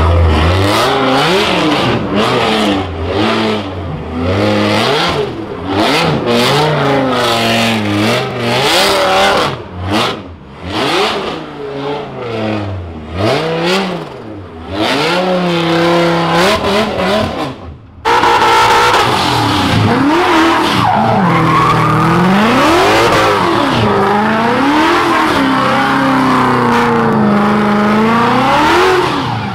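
Drift cars sliding under power: the Dodge Viper's V10 is revved up and down again and again against screeching, spinning tyres. About 18 seconds in the sound cuts abruptly to another drift car, with a thicker, steady tyre screech and the engine still rising and falling as it spins donuts.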